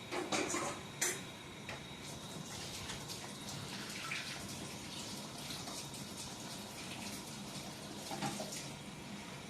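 Water running from a kitchen tap, a steady rush, with a few sharp knocks in the first second.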